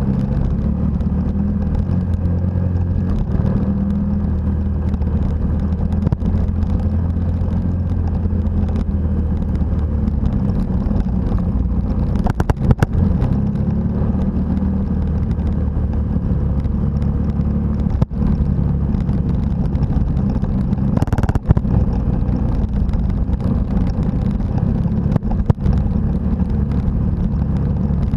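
Motorcycle engine running steadily while riding a gravel road, heard from the camera rider's own bike. Its drone shifts pitch a few times with the throttle, with wind on the microphone and a few sharp knocks.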